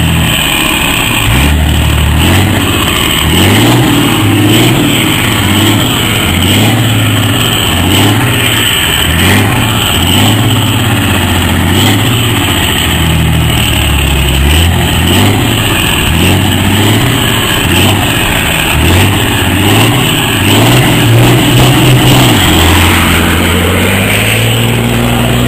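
Heavy diesel truck engine revving again and again, its pitch climbing and falling back roughly once a second, then holding more steadily near the end.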